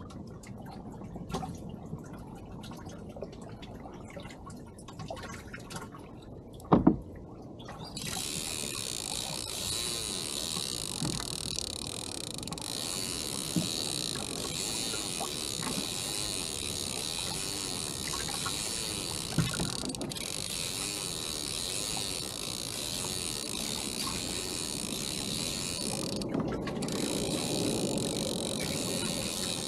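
A sharp knock about seven seconds in. Then a steady, high mechanical whirr with a hiss starts abruptly about a second later and runs on, dropping out briefly near the end.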